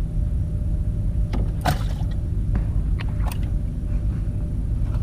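Steady low motor drone, with a few short light knocks and clicks in the first half.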